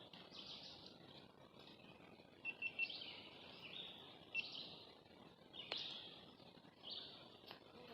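Faint songbirds singing short high phrases, repeated every second or so, over a quiet background hiss.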